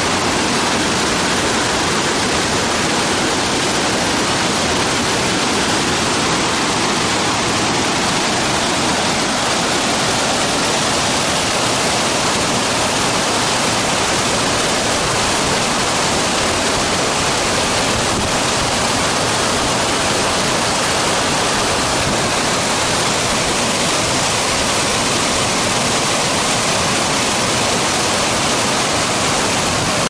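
Waterfall and rapids pouring over rocks: a loud, steady rush of white water.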